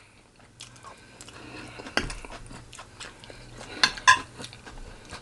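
A person chewing food close to the microphone, with scattered mouth clicks and a sharp tap about two seconds in.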